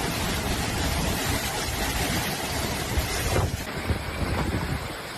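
Strong storm wind buffeting the microphone: a dense, unbroken rush of noise. The sound changes abruptly about three and a half seconds in, as one piece of storm footage cuts to the next.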